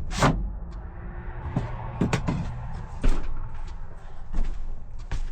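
Wooden knocks and clunks, about five, as a barnwood board is handled and set against the cabinet to be lined up.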